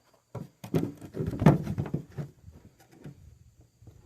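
A cut plexiglass panel handled and pressed into a car's window opening for a test fit: a cluster of knocks, thumps and plastic rattling, loudest about a second and a half in, then a few small clicks.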